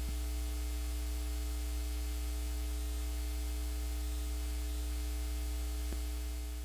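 Steady electrical hum with hiss and a few faint steady tones above it, beginning to fade near the end.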